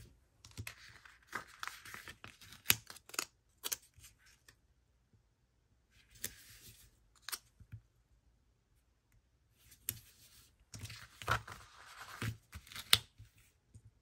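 Paper stickers being peeled from their backing sheet and pressed and rubbed down onto a paper planner page, in three bursts of rustling and scratching with light sharp taps.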